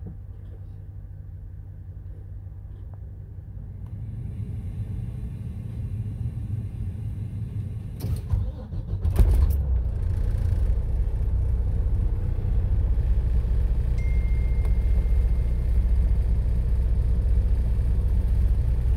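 Volvo D13 diesel engine of a VNL semi truck idling, heard from inside the cab. A couple of knocks come about eight and nine seconds in, after which the idle grows louder, with more low rumble.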